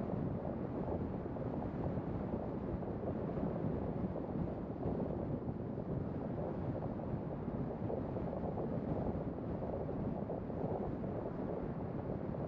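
Steady low rumble of wind and road noise from a car driving along at street speed.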